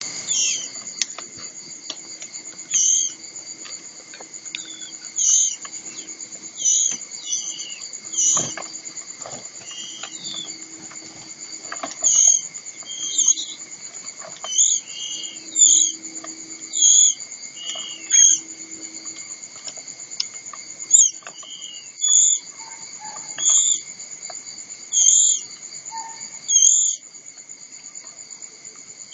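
White-rumped shamas giving short, sharp calls about every second or two, over a steady high-pitched drone of insects.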